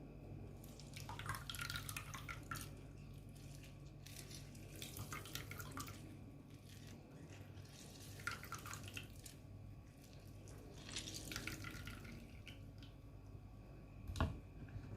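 Lime being squeezed by hand, its juice dripping and trickling into a liquid in several faint spells, with a sharp click near the end.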